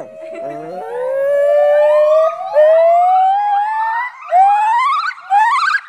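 Male crested gibbon singing its loud territorial and mate-attracting song. It gives one long note that rises slowly in pitch for about four seconds, then short, quickly warbling notes that rise sharply, one after another, near the end.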